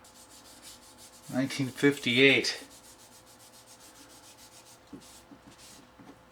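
Wet sandpaper rubbing back and forth on a Bakelite utensil handle in quick, even strokes, several a second, smoothing down its bumpy surface. A few spoken words come in about a second in and are the loudest sound.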